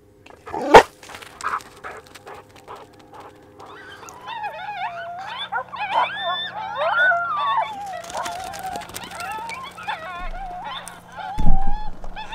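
Coyote howls and yips: several overlapping, wavering cries that rise and fall, starting about four seconds in and going on to near the end. A sharp knock comes about a second in, and a heavy thump near the end.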